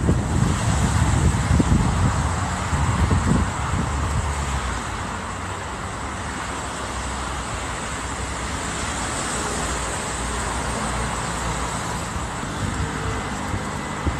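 Steady rush of road traffic, with heavy low buffeting of wind on the microphone that eases after about four seconds.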